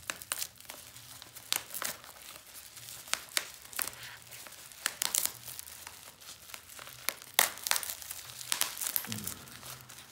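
Black plastic bubble-wrap packaging crinkling and tearing as it is peeled and pulled open by hand, in irregular sharp crackles, the loudest about seven seconds in.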